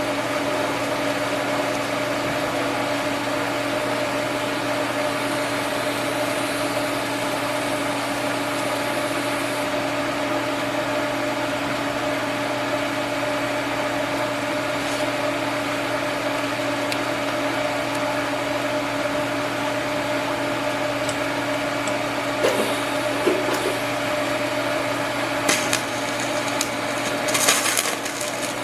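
Steady electric machine hum, even in level, with a few short scraping and clicking strokes toward the end.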